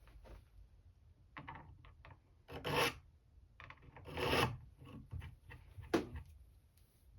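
Hand file rasping across the side of a Craftsman screwdriver's steel tip, narrowing the blade: a few light strokes, then two longer, louder strokes in the middle and a short sharp one near the end.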